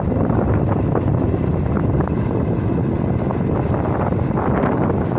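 Steady rush of wind buffeting the microphone on a moving motorcycle, with the bike's engine and road noise mixed underneath.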